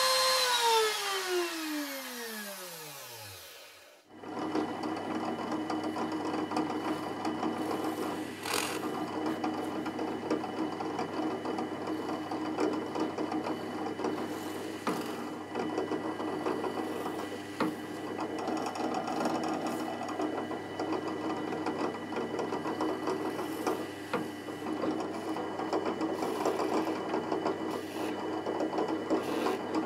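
Bosch PMR500 trim router in a router table spinning down after being switched off, its whine falling in pitch and dying away over about three seconds. Then a radial drill press (SDP-600RD) runs steadily while holes are drilled, with a sharp click about eight seconds in.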